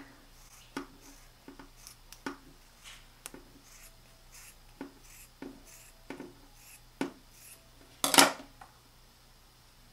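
Scissors cutting through a foam makeup sponge (beauty blender): a series of short snips, about one every half second. A brief, louder noise follows about eight seconds in.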